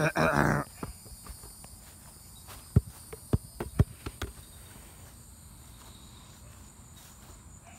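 Insects trilling steadily in the background, with a brief loud voice-like sound at the very start. A handful of dull thumps come a few seconds in, from walking across the lawn with the phone.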